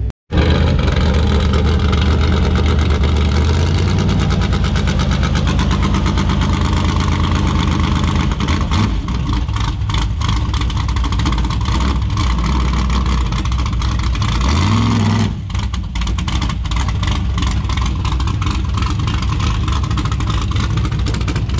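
Mega truck's nearly 500-cubic-inch small-block Chevy V8 running steadily, with one short rev about fifteen seconds in.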